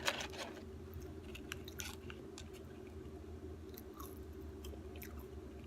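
A person chewing fast food, with scattered wet smacks and crunches, over a steady low room hum.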